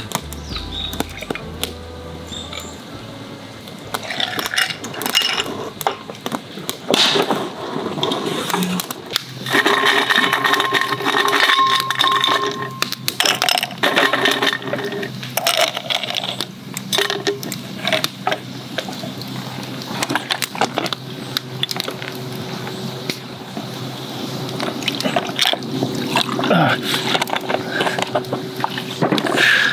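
Ice cubes clinking in a tall glass, then whisky and soda water poured over the ice to make a highball. There are sharp clinks in the first third and a run of pouring after that, its pitch rising as the glass fills near the end.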